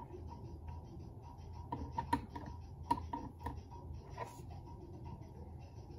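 Light taps and soft scrapes of a utensil spreading dulce de leche onto a crepe, with a cluster of small clicks about two to three and a half seconds in and one more a little after four seconds.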